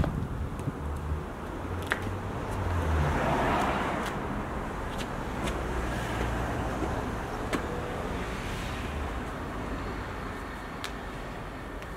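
A car driving past: its road noise swells to a peak about three and a half seconds in and then slowly fades.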